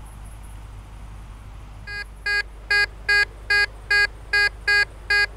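Tesoro De León metal detector signalling a buried metal target: a run of about nine short beeps at the same pitch, about two and a half a second, starting about two seconds in.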